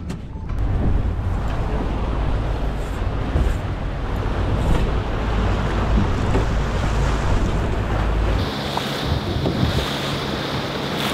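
Boat underway at trolling speed: wind buffeting the microphone over the rush of the churning wake. A heavy low rumble drops away about eight seconds in, leaving a steadier, higher hiss.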